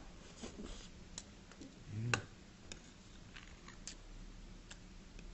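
Metal chopsticks and a spoon tapping lightly against ceramic dishes and bowls: a scattering of small clicks about a second apart, the loudest one about two seconds in.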